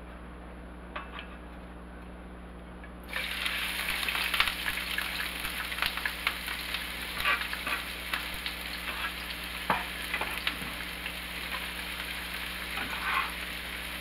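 Thinly sliced onions sizzling in hot oil in a frying pan. The sizzle starts suddenly about three seconds in, as they are dropped into the pan, and carries on steadily with crackles and a few knocks and scrapes from a metal bench scraper.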